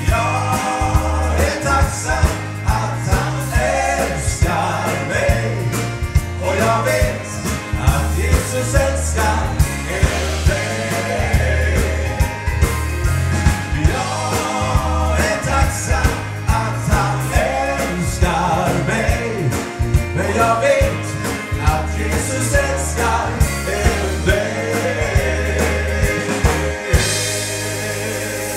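Live band playing a gospel-country song, with sung vocals over bass, guitar and a steady drum beat. Near the end the rhythm stops and the band holds a final chord with cymbal wash.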